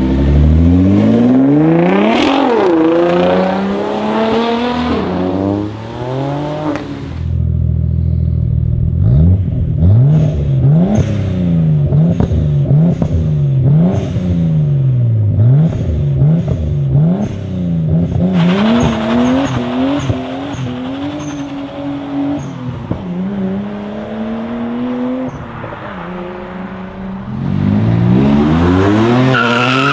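Performance car engines revving hard, one clip after another. First a Nissan GT-R accelerates away, its engine note climbing and falling through the gears. Then, through the middle, a Nissan Skyline's straight-six is blipped over and over, the revs rising and dropping about once a second, before more hard acceleration near the end.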